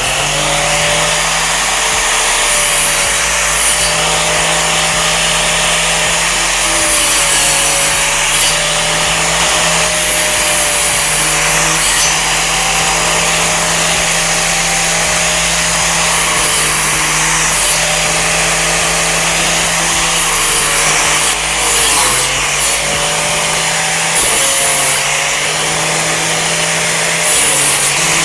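Angle grinder with a cutting disc running and cutting into a wooden board: a steady motor whine that wavers and dips in pitch as the disc bites, with short hissing rasps from the cut every few seconds.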